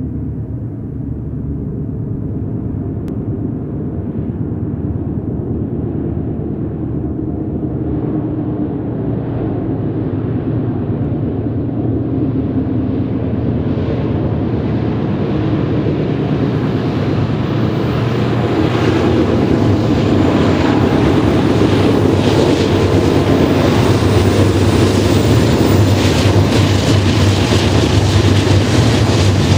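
Lashup of BNSF GE diesel-electric locomotives working hard upgrade under load: a steady low engine drone that grows steadily louder as the train approaches, fuller and brighter as the locomotives come alongside near the end.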